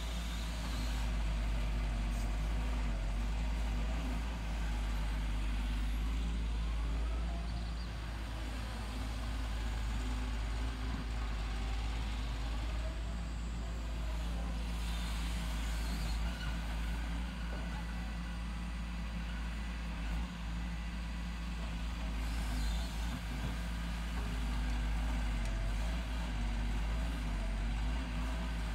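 Wheeled excavator's diesel engine running steadily under working load as it digs, its note shifting slightly up and down as the arm and bucket move.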